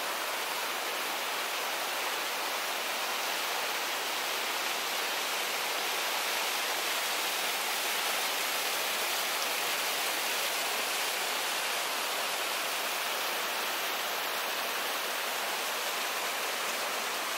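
Small waterfall splashing out of a rock cleft: a steady, unbroken rush of falling water.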